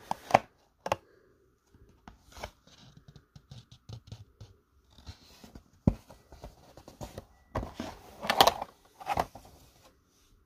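Cardboard of a Topps Archives Signature Series box being prised and torn open by hand: scattered scratching, tearing and small clicks. A louder run of scraping and clicks comes about eight seconds in, as the plastic-cased card is lifted out of its insert.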